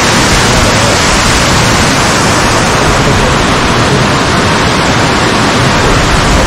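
Yudaki waterfall's water rushing down its rock face, a loud steady wash of noise.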